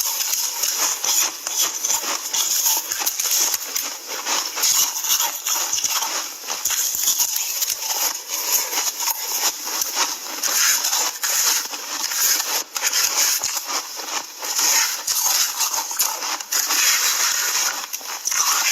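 Ice being chewed and crunched close to the microphone: a dense, continuous run of sharp crackling crunches.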